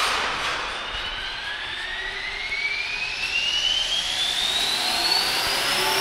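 450-size RC helicopter's electric motor and main rotor spooling up on the ground, a whine that climbs steadily in pitch.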